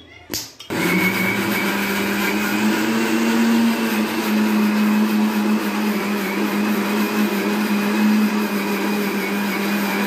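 Indian mixer grinder (mixie) running at a steady speed, blending a cooled milk and cornflour custard smooth, starting about a second in after a brief knock. Its hum drops slightly in pitch a few seconds in, then holds.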